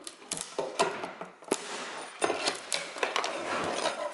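Steel pry bar levering carpet tack strip up off a wooden floor: a run of irregular sharp clicks and knocks of metal on wood, with scraping as the thin nailed strip lifts and cracks.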